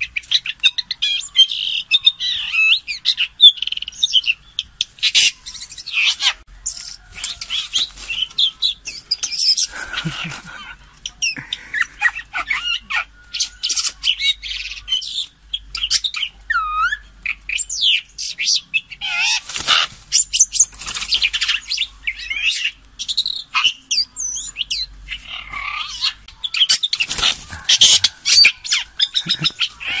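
Red-billed blue magpie calling in a wire cage: a busy, continuous run of chirps, whistled glides and harsh squawks, mixed with sharp clicks.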